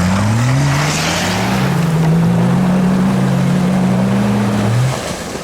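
Off-road 4x4's engine revving hard as it pushes through mud and water, with splashing. The revs climb in the first second or so, hold high, then drop near the end.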